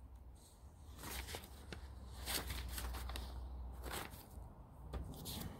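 Faint rustling and a few brief soft clicks of paper catalog pages being handled and turned, over a faint steady hum.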